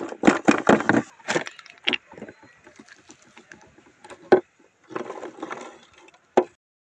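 Small firecrackers bursting inside a green glass bottle on concrete. A fast run of sharp cracks through the first second and a half fades into fainter ticking, then one loud crack a little past four seconds, a short burst of crackling, and a final crack near the end.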